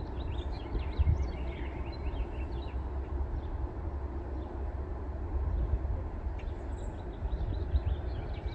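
Gusty low rumble of wind on the microphone, with small birds chirping, busiest in the first couple of seconds and again near the end.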